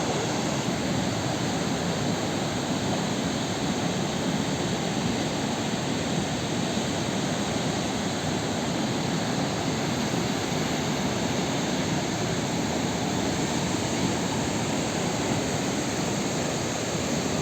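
Waterfall on a river: a steady rush of falling water.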